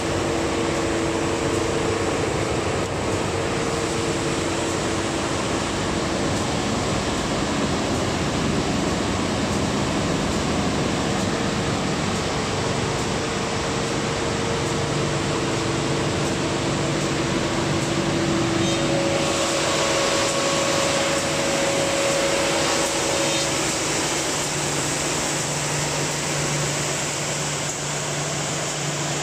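Three-head wide-belt planer sander running, a steady mechanical drone with a few humming tones that shift over time. The hiss grows brighter about two-thirds of the way through.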